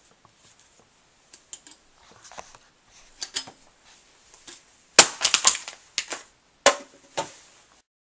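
Aluminium soda can being handled: scattered faint clicks, then a quick run of loud sharp crackles about five seconds in and two more sharp strikes shortly after.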